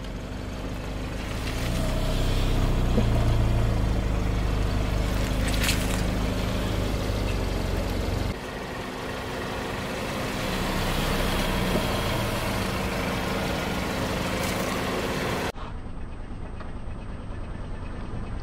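Car engine running at low speed as the car creeps forward on asphalt. The sound jumps abruptly twice where shots are cut together.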